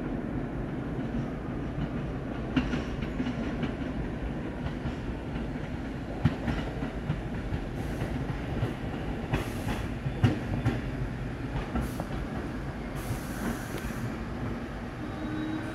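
New York City Subway 1 train of R62A cars approaching along open track with a steady rumble. Wheels clack sharply over rail joints several times, and a high hiss comes twice in the second half.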